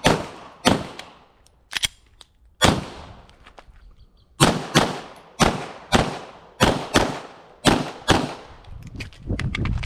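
Glock 34 9mm pistol fired through a USPSA stage: about a dozen shots, a few spaced ones, a pause of nearly two seconds, then a run of roughly two shots a second, each with a short echo.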